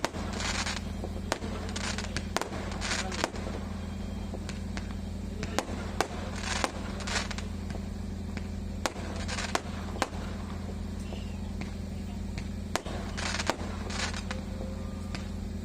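Fireworks and firecrackers going off in scattered single bangs at irregular intervals, mixed with several short hissing bursts, over a steady low hum.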